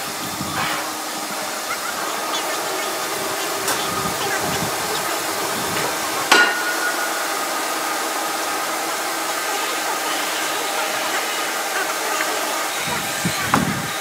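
Sawmill machinery running with a steady hiss and hum, broken by a sharp clack about six seconds in and a lighter knock near the end.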